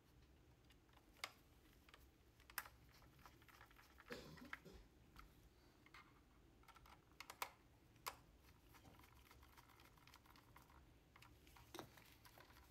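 Faint, sparse clicks of a small screwdriver working screws in the plastic ball cup of a trackball: a few sharp ticks spaced a second or more apart, over near silence.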